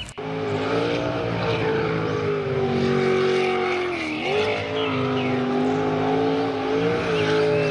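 Dubbed engine sound effect: a motor running steadily, its pitch dipping and recovering about four seconds in.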